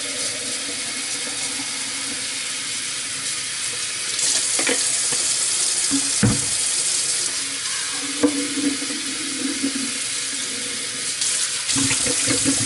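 Kitchen mixer tap running into a sink, filling plastic and glass drinking bottles, with a few knocks of the bottles being handled. The water sound gets fuller about four seconds in.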